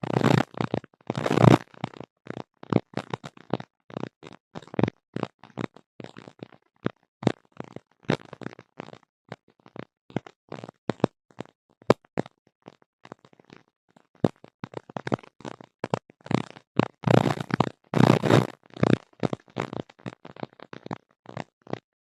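Irregular crackling and popping bursts, the unexplained stray noise coming through a tablet's audio, thickest near the start and again about three-quarters of the way in.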